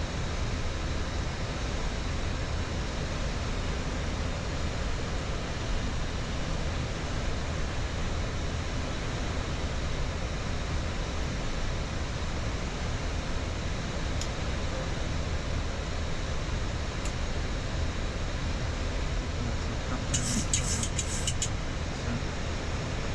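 Steady flight-deck noise of a Boeing 737-8 MAX on approach: an even rush with a low hum underneath. Near the end, a brief run of sharp clicks.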